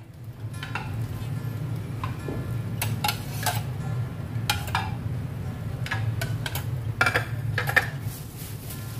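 Metal kitchen tongs clicking and clinking against a pan and a plate as food is lifted out, a dozen or so sharp clicks at uneven intervals over a steady low hum.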